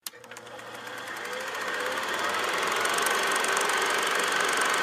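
Old film projector sound effect: a rapid, even mechanical clatter with a steady whir, fading in over the first few seconds.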